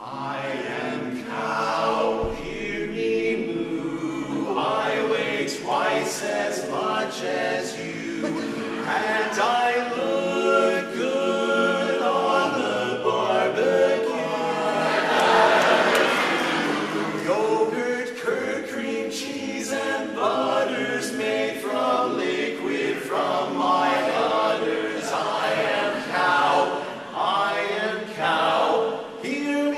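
A small men's barbershop chorus of seven voices singing a cappella in close harmony. All the voices come in together from near silence on the opening chord.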